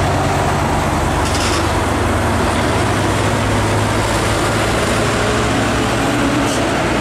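Diesel trucks driving past close by: a steady low engine drone with tyre and traffic noise.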